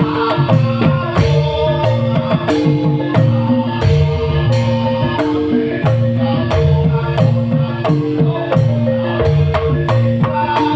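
Live band music: a quick percussion beat over held, steady low notes.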